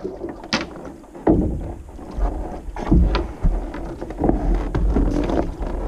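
A canoe being paddled and edged in among shore rocks, with irregular knocks and splashes of paddle and hull against rock and water. Gusts of wind buffet the microphone.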